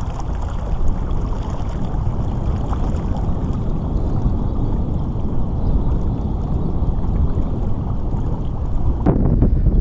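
Water rushing and lapping along the hull of a pedal-driven sit-on-top kayak under way, over a steady, heavy low rumble of wind on the microphone.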